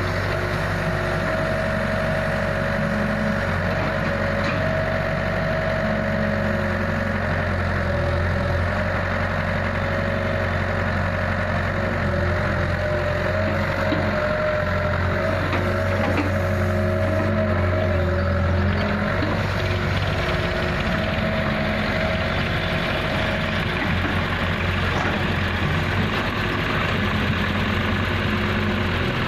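Diesel engines running steadily: a Kato HD250 tracked excavator working as it loads soil, and tractors idling beside it. A steady higher tone runs along with the engine hum and drops out after about twenty seconds.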